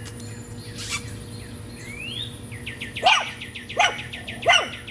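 Aussiepoo puppy giving three short, sharp barks about a second apart in the second half, over a bird's rapid chirping trill.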